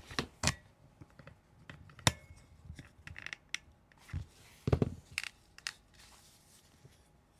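Plastic TV remote housing and parts being handled and fitted together: a run of separate clicks, knocks and light scrapes, with the sharpest clicks about two seconds in and around the middle.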